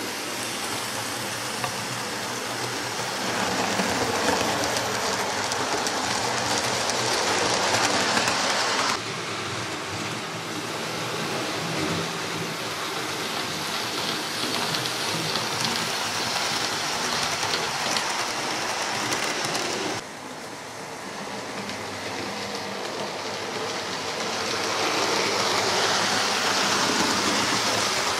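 Hornby OO gauge Class 43 HST model train running on its track: a steady whirr and rumble of the motor and wheels. It swells as the train comes close and drops away suddenly about nine seconds in and again about twenty seconds in.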